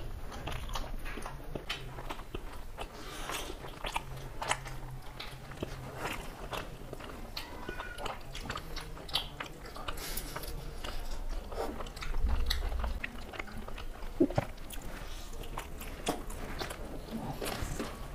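Close-up eating sounds of two people eating rice, luchi and chicken curry with their hands: irregular wet chewing, lip smacks and biting, with a low bump about twelve seconds in.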